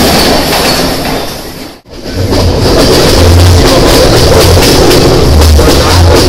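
Loud running noise of a passenger train: first a train passing close by, then a brief drop-out about two seconds in, then a train's running noise heard at its open window with low buffeting on the microphone.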